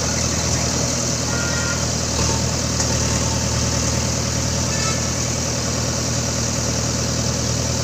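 JCB backhoe loader's diesel engine running steadily at a low, even hum.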